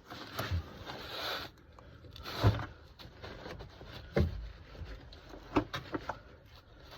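Handling noise: rubbing and scraping with a series of knocks, the loudest about two and a half seconds in and three quick ones near the end.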